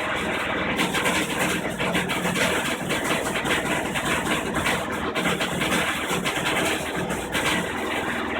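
Samsung WF405 front-loading washer in its spin cycle: a steady machine hum with rapid, uneven banging and rattling on top. The noise is a fault, which the owner says is not the sound of an unbalanced load.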